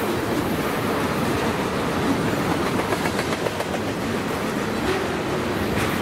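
Freight train of tank cars rolling past close by: a steady rumble of steel wheels on rail, with a few clicks near the end.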